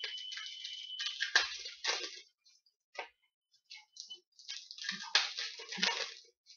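Crinkling and rustling of trading-card packs and cards being handled and opened, in irregular bursts, the loudest about a second and a half in and again around five to six seconds in.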